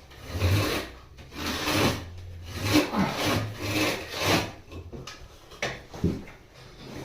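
Handsaw cutting through wood in a run of rasping strokes, coming quicker in the middle, then a couple of sharp knocks near the end while cutting out a ceiling hatch.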